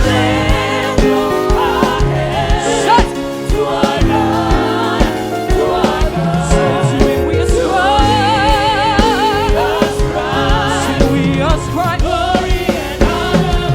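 Live gospel praise music: singers with vibrato over a full band keeping a steady beat.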